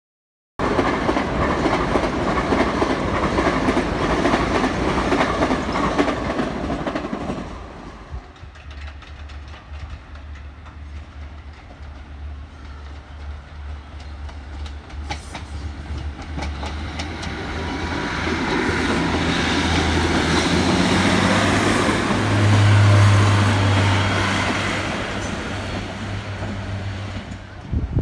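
Class 150 Sprinter diesel multiple unit approaching and passing, its underfloor diesel engines giving a steady low drone that grows louder to a peak about three-quarters of the way through, then eases off. Before that, the first seven seconds hold a loud, even rushing noise that stops abruptly.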